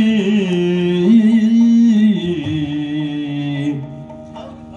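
Yakshagana bhagavata (lead singer) holding long, gliding sung notes over a steady drone. The voice steps down in pitch about two seconds in and falls away near the end.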